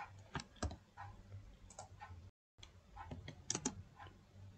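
Computer mouse clicking: a few sharp clicks, two of them close together about half a second in and another close pair a little past the middle, with fainter ticks between. The sound drops out completely for a moment just past halfway.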